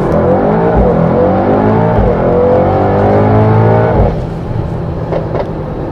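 Mercedes-AMG GT 4-door coupe's engine and exhaust revving, the pitch rising and falling for about four seconds before dropping back quieter.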